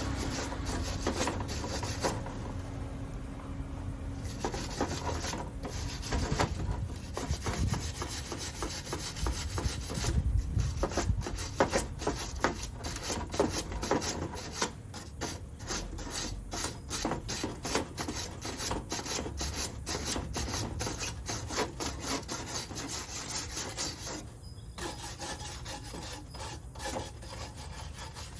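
Rapid, repeated scraping strokes, like filing, on small metal lock parts while a pickup's door lock cylinder is rekeyed.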